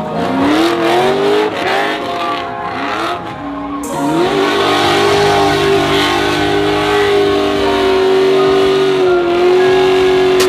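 Car engine revving up and down several times, then held at high revs for about six seconds.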